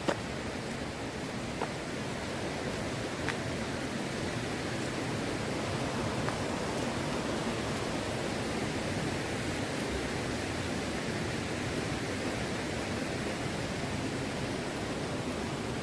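Steady rush of a mountain stream flowing, growing a little louder over the first few seconds and then holding even. A few faint clicks sound in the first few seconds.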